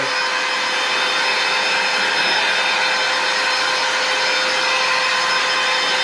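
Handheld electric air duster running steadily, blowing dust out of an electric unicycle's open shell: a constant rush of air with a steady motor hum and high whine.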